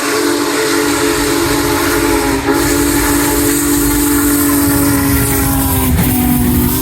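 Union Pacific Big Boy 4014 steam locomotive's whistle blowing one long, steady chord, its pitch sagging a little and breaking briefly near the end. The low rumble of the locomotive and train grows underneath from about halfway.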